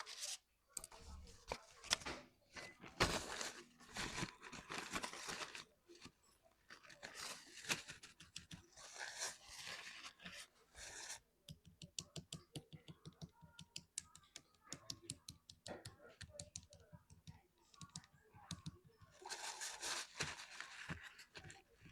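Close-up handwork noises from keycap crafting. There are bursts of scraping or rustling, and through the middle stretch a long run of rapid small clicks, several a second.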